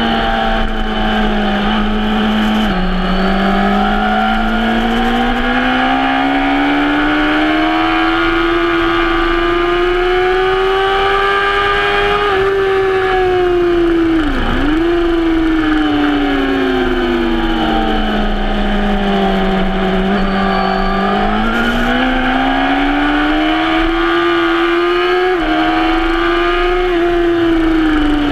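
Suzuki sports bike's engine heard from on board at track speed. The engine note drops and climbs again on an upshift a few seconds in, rises steadily through a long pull, dips sharply and recovers about halfway through, sags slowly, then climbs again with another gear change near the end.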